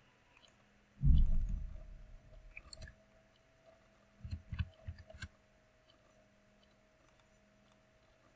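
Computer mouse clicks and handling noise on a desk. A loud, dull thump comes about a second in and fades over a couple of seconds, and a short cluster of knocks and clicks follows around the middle.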